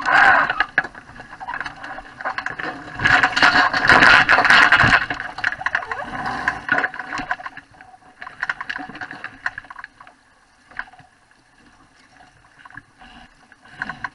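Water rushing and splashing along the hull of a Wayfarer sailing dinghy under way. It is loudest at the start and again from about three to five seconds in, then dies down to faint lapping.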